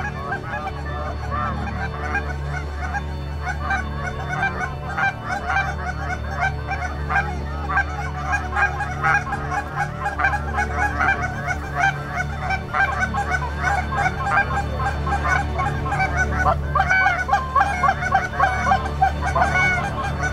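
A large flock of Canada geese honking overhead, with many calls overlapping in a continuous din that grows louder toward the end, over a steady low rumble.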